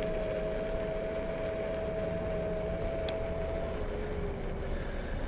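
Fluid Horizon electric scooter's motor whining in two steady tones over wind rush on the microphone, cruising at about 10 mph in first gear. Near the end the higher tone fades and the lower one drops slightly in pitch as the scooter eases off.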